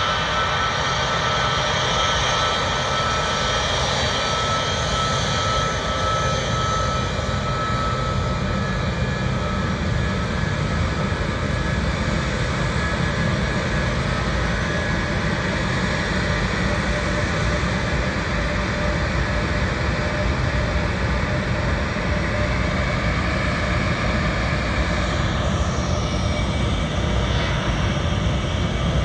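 Boeing C-17 Globemaster III's four turbofan engines running at taxi power as it passes close by: a steady jet noise with a deep rumble. A high whine is heard at first and fades away after about eight seconds.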